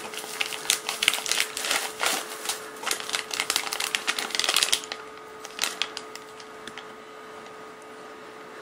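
Bubble wrap and a plastic bag crinkling and rustling as they are pulled off a wristwatch by hand. The rustling is dense for about five seconds, then drops to a few faint crinkles.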